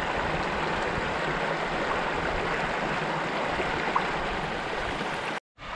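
Shallow river water rushing over rocky ledges in small rapids: a steady rush that cuts off abruptly about five seconds in.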